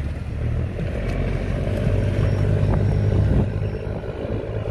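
Wooden fishing trawler's diesel engine running hard under throttle: a deep, steady chugging from its exhaust stack as the boat passes close by.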